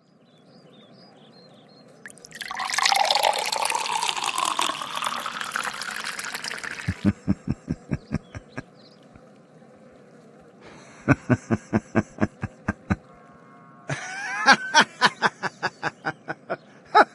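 Pouring-liquid sound effect: a splashing pour starts about two seconds in and lasts around five seconds. After it come runs of quick, evenly spaced pulses, and near the end a bending, voice-like sound.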